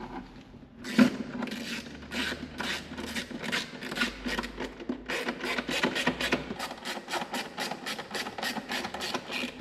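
A 3D-printed plastic prototype airbox and its silicone intake hose rubbing and scraping against the engine bay as they are worked into place by hand. There is a sharp knock about a second in, then a fast run of short rasping strokes, about three to four a second.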